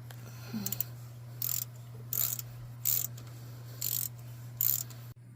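Ratchet wrench clicking in six short bursts, about one every three-quarters of a second, as 8mm bolts on a UTV's oil filter canister housing are backed out stroke by stroke, over a steady low hum.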